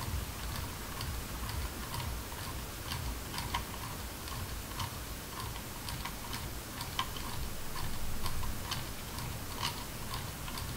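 Scroll wheel of a Roccat Kone Aimo Remastered gaming mouse clicking notch by notch as it is rolled, a run of short ticks about two or three a second, unevenly spaced. This is the unrepaired wheel, whose worn stock encoder makes the scrolling stutter, skip lines or reverse.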